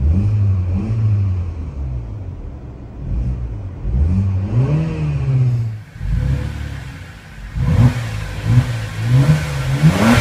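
Car engine being revved in a series of throttle blips, with one longer rev climbing and falling back around the middle. Near the end come several quick, sharp blips with cracks among them.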